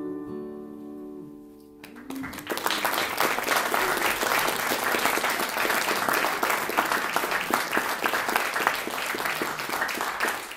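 The final chord of an acoustic guitar and fiddle rings and fades, then about two seconds in an audience breaks into steady applause that keeps going.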